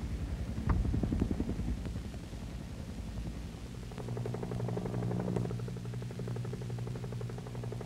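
A low, irregular rumbling for the first few seconds, then a UH-1 Huey helicopter in flight: a steady droning hum of rotor and turbine from about four seconds in.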